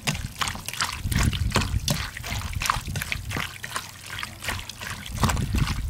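Wet squelching and squishing as bare hands knead raw boneless chicken pieces in a liquid soy sauce and soju marinade in a stainless steel bowl, in many short irregular squelches.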